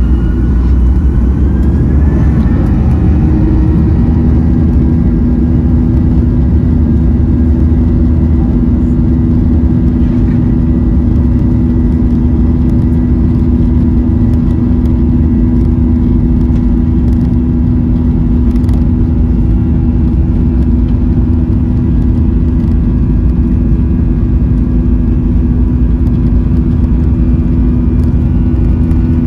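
Boeing 737-900ER's CFM56-7B turbofan engines heard from the cabin over the wing, spooling up with a rising whine over the first few seconds, then holding a steady whine at takeoff thrust over a loud, continuous low rumble during the takeoff roll.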